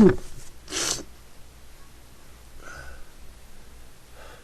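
The tail of a person's sneeze, one of a fit of repeated sneezes, cut off right at the start. About a second in comes a short, sharp, noisy breath through the nose, followed by faint breathing.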